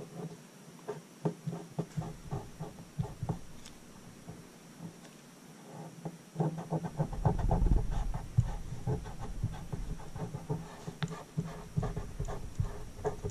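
Hobby knife blade scratching and ticking as it trims a paint mask laid on a pinball playfield, with louder rubbing and handling noise from hand and mask against the playfield from about six seconds in.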